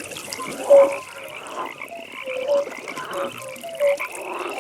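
Frogs croaking at a pond: short croaks at irregular intervals, about two a second, one louder croak near the start. Under them runs a steady, high, rapidly pulsing trill.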